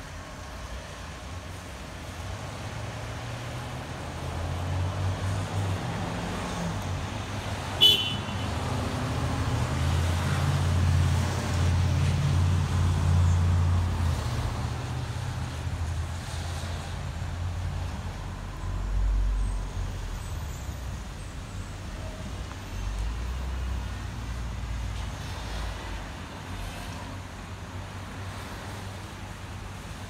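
Traffic moving through an intersection on a wet road: engines and tyre hiss swell as vehicles pass, loudest about ten to fourteen seconds in, then fade. A brief sharp high-pitched sound stands out about eight seconds in.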